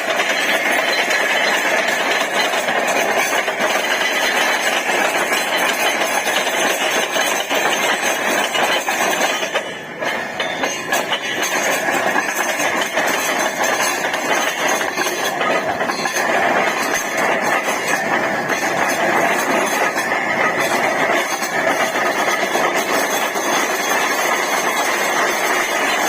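Borewell drilling rig running steadily, with a rapid, dense hammering over the machine noise, as of a down-the-hole air hammer drilling; the noise drops briefly about ten seconds in.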